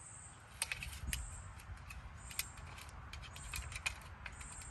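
Sparse light clicks and rattles of a Minn Kota trolling motor's control head and wiring being handled and fitted onto the top of the shaft.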